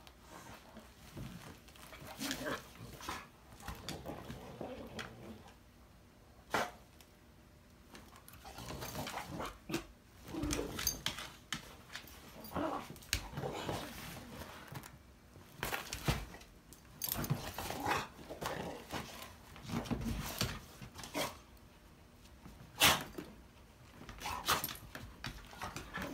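Two pit bulls playfighting: irregular growls and barks with scuffling, and a few sharp knocks, the loudest about 23 s in.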